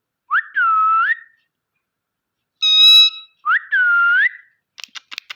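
Pet parrot whistling twice, each time a quick upward glide into a held note. Between the whistles comes one loud, harsh, buzzy call, and a few sharp clicks follow near the end.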